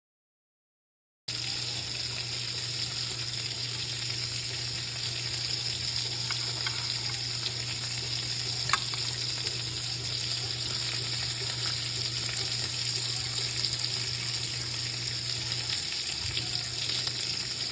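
Hot food bubbling and sizzling steadily in a pan, starting after about a second of silence. Under it runs a low hum that drops out near the end, with a single click about nine seconds in.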